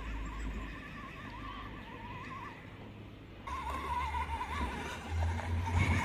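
Small electric motor and gearbox of a WPL C54-1 1/16-scale RC Land Cruiser whining, the pitch wavering up and down as the throttle and load change, over a low rumble. About three and a half seconds in the sound jumps and grows louder.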